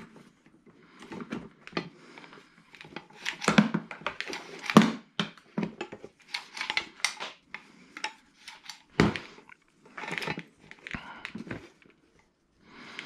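Hands fumbling with a rewind pull-start's cord and handle: irregular clicks, taps and rattles of small plastic and metal parts, with a few sharper knocks near the middle.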